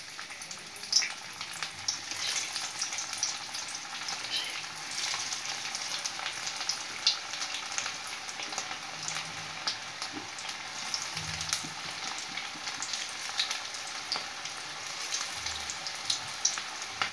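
Small shrimp kofta balls deep-frying in hot oil in a karahi: a steady sizzle with frequent small crackles and pops.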